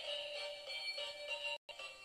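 A battery-powered light-up toy car playing a thin electronic tune through its small speaker, with a brief break in the sound near the end.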